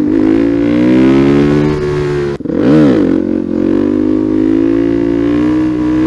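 Suzuki DR-Z400 supermoto's single-cylinder engine under way, its revs climbing steadily as it pulls. About two and a half seconds in the engine note drops sharply and flicks up and down at a gear change, then climbs again.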